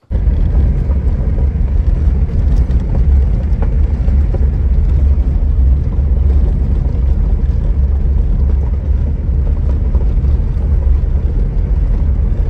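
Steady low rumble of a vehicle driving on an unpaved gravel road: tyre and road noise.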